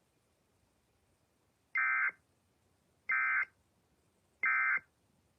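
Emergency Alert System end-of-message data tones: three short, harsh digital buzzing bursts, each about a third of a second long and about 1.3 seconds apart, signalling the end of the alert.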